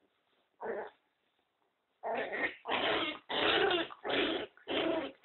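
Pinscher puppy growling in play: one short growl under a second in, then a run of five loud growls of about half a second each from about two seconds in.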